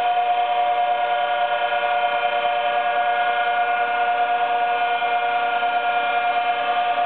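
Milling machine cutting a blackwood surface, its table fed by a cordless drill used as a power feed: a steady, unchanging whine of several pitched tones.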